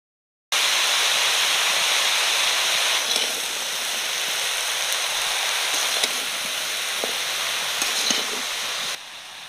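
Chopped pumpkin stalks, eggplant and fried fish head sizzling steadily in hot oil in a kadai while the spices are stirred through, with a few light spatula scrapes near the end. The sizzle starts abruptly about half a second in and eases a little after about three seconds.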